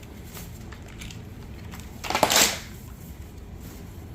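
Plastic parts of upright vacuum cleaners being handled and moved: a few light clicks, then a short, louder scraping rattle about two seconds in.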